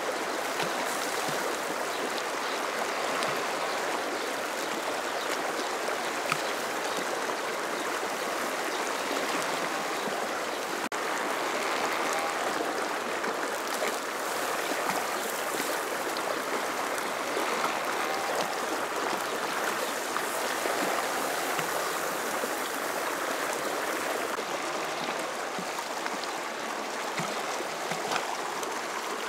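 Fast mountain river rushing and splashing over rocks, a steady, even water noise.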